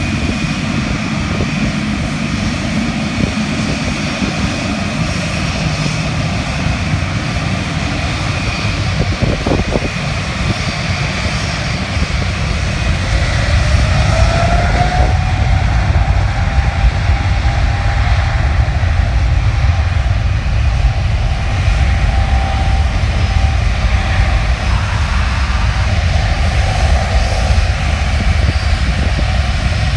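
Jet airliner's engines running with a steady low rumble and whining tones that slide in pitch, growing louder about thirteen seconds in.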